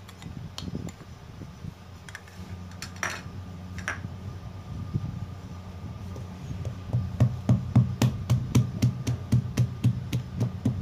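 Wooden pestle pounding garlic, fresh ginger and fresh turmeric in a wooden mortar. A few scattered knocks come first, then steady thuds at about three strikes a second from about seven seconds in.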